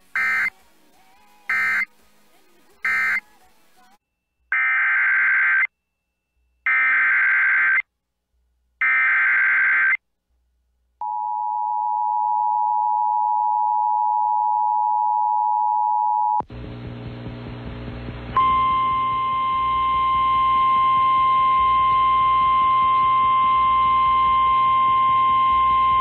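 Emergency Alert System signalling. Three short data bursts end the previous message. Three longer SAME header bursts follow, announcing a new severe thunderstorm warning. Then comes a steady two-tone EAS attention signal for about five seconds, a moment of radio static, and the NOAA Weather Radio 1050 Hz warning alarm tone held over the static for about nine seconds before it cuts off.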